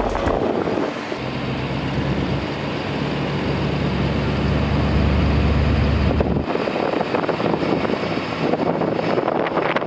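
An engine running at a steady speed over wind noise, its low hum stopping abruptly about six and a half seconds in.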